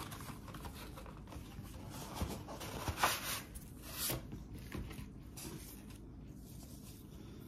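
Cardboard mailer being handled and opened: faint rustling and scraping of cardboard and paper, with a few louder rubs in the middle.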